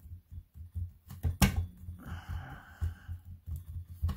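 Soft repeated thumps and taps of hands pressing and rolling a polymer clay cane on a work mat to reduce it, with one sharper click about a second and a half in.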